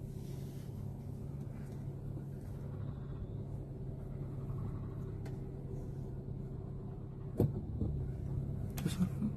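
Maruti Suzuki Swift Dzire's petrol engine running with a steady hum, heard from inside the cabin as the automatic creeps forward in drive. A single sharp knock comes about seven seconds in, and a few fainter clicks near the end.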